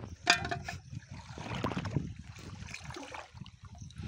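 Shallow pond water sloshing and trickling as someone wades and handles plastic-bottle fish traps. About a third of a second in there is one sharp knock with a brief metallic ring, like a bottle striking the aluminium pot.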